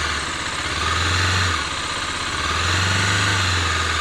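Bajaj Dominar 250 single-cylinder engine running in neutral, its note swelling twice: about a second in and again from just before three seconds. Somewhere in the engine is an abnormal noise that the owner suspects comes from the timing chain tensioner, and possibly from the cylinder head.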